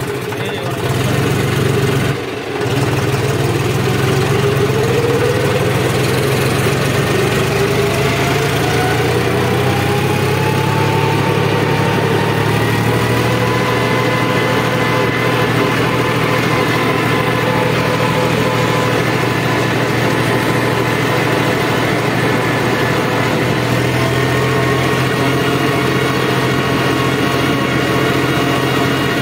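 John Deere 5405 tractor's three-cylinder diesel engine running under way, heard from the driver's seat. It dips briefly about two seconds in, then its pitch climbs steadily over several seconds as the tractor gathers speed, and it runs evenly after that.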